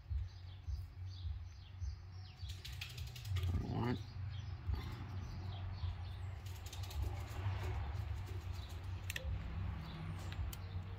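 Hand wire crimper clicking and creaking in short bursts, loudest about three seconds in and again near nine seconds, as it squeezes an uninsulated crimp connector onto a stripped power-cord wire. Birds chirp faintly over a low steady hum.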